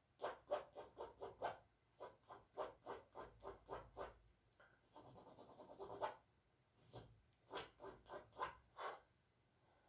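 Charcoal scratching on canvas in quick runs of short strokes, with a longer, smoother rubbing stroke about five seconds in, then another run of short strokes.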